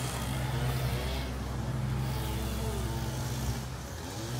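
A steady low motor hum, like an engine or machine running.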